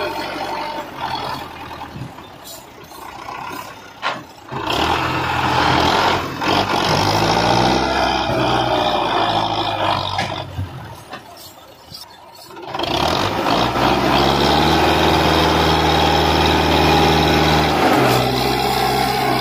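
Belarus 510 tractor's diesel engine labouring under load as it pulls a loaded trolley through mud, its pitch rising and falling as it is throttled up and eased off. It drops off twice, then runs steady and loud for the last few seconds.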